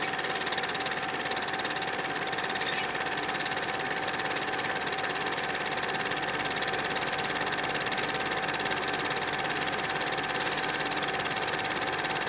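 A small machine running steadily: an even, fast mechanical clatter over a constant whirring hum.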